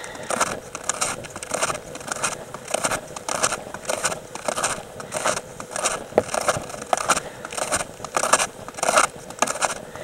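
Snowshoe footsteps crunching in dry, very cold snow, a steady walking pace of about two steps a second.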